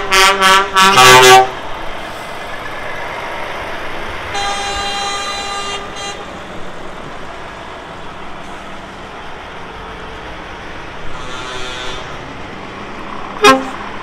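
Truck horns sounded by lorries leaving a show: a rapid string of short blasts in the first second and a half, then a single longer blast about four seconds in and a fainter one near the end, over the steady running of truck engines. A brief sharp blip comes just before the end.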